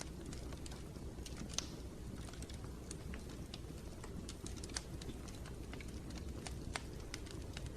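Wood fire crackling in a fireplace: irregular sharp snaps and pops over a steady low rumble of the flames.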